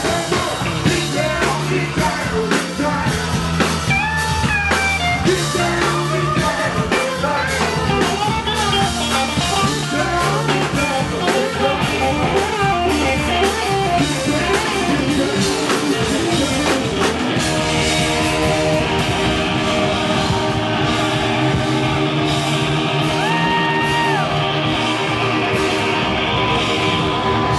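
Live funk and hip-hop band playing: drum kit, bass guitar and guitar, with a voice on the microphone. About seventeen seconds in the drums drop out and held keyboard chords carry on.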